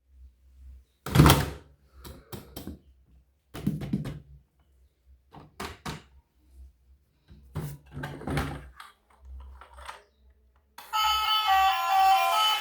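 A few separate knocks and thuds, the loudest about a second in. Plucked, guitar-like music starts about two seconds before the end.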